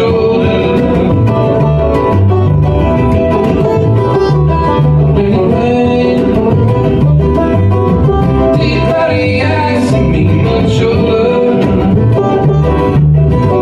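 Live bluegrass band playing: bowed fiddle, banjo, acoustic guitar, mandolin and upright bass together.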